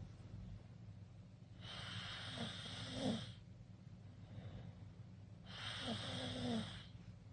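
Teenager snoring with her mouth open: two long noisy breaths about four seconds apart, each carrying a short pitched snore near its end, over a steady low hum.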